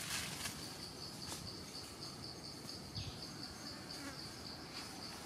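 An insect trilling in the forest: a high, evenly pulsed buzz, about five pulses a second, that starts about a second in and runs on steadily. A few brief rustles sound beneath it.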